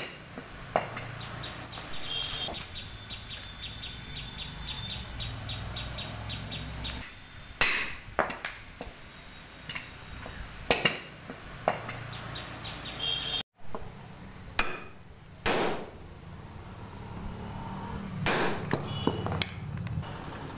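Hammer blows on the steel yoke and cross of a tractor drive shaft's universal joint as the cross is knocked out to be changed. The blows are sharp metallic knocks, struck singly or in quick pairs with pauses between, and metal parts clink lightly in between.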